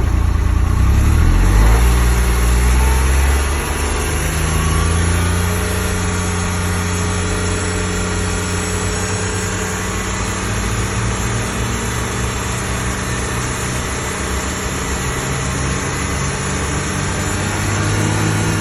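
2025 XD1500 NSU engine running. It revs up over the first three seconds, drops back, then runs steadily with a whining noise.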